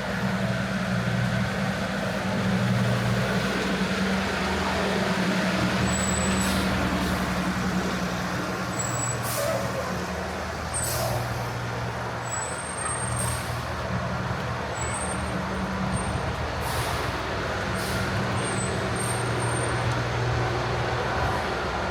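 Steady low hum of a large vehicle running, with several short high-pitched squeaks and a few sharp clicks in the middle stretch.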